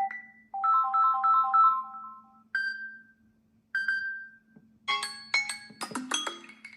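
Samsung Galaxy S24 Ultra stock ringtones: a short phrase of repeated chiming notes, then two single bell-like tones about a second apart, each ringing out. About five seconds in, a busier, clicky marimba-like tune starts. A faint steady hum runs underneath.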